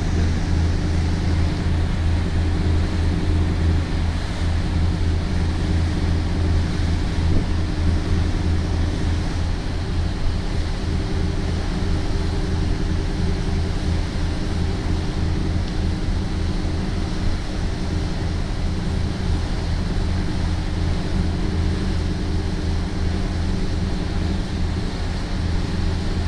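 Steady low drone of marine engines, mixed with wind and the rush of water from a fast boat's wake.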